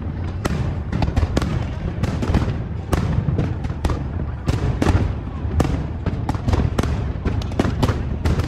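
Fireworks display: a dense, irregular run of bangs and crackles, several a second, over a continuous low rumble.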